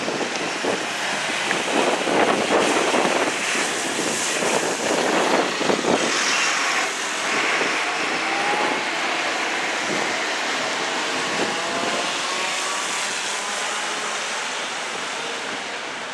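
Road traffic driving past, a steady rush of engine and tyre noise, with faint rising engine tones in the second half as a vehicle speeds up.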